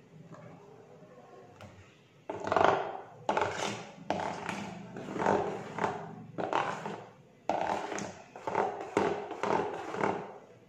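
A spoon scraping thick chocolate cake batter around the sides of a stainless steel mixing bowl. About eight scraping strokes start about two seconds in.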